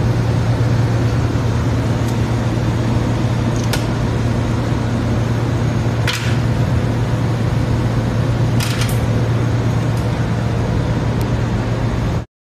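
Loud, steady low hum of machinery on a starch production line, with a few sharp clicks or knocks now and then. It cuts off suddenly near the end.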